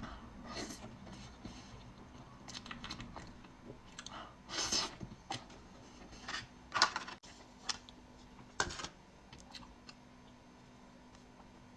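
Chewing and mouth sounds of someone eating a xuemeiniang, a soft snow-skin mochi cake with a cream filling: irregular short sounds, with a few louder smacks in the middle.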